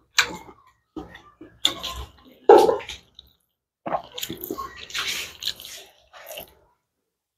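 A bare hand mixing rice with kholar beans and wet chutney on a plate: a string of short, wet squishing sounds in the first three seconds, the loudest near the middle, then a couple of seconds of steadier mixing.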